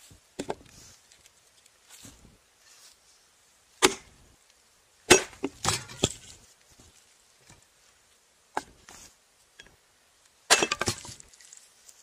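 Hatchet chopping and splitting small pieces of wood on a log: sharp, separate wooden chops at uneven intervals, with a quick cluster of strikes in the middle and another near the end.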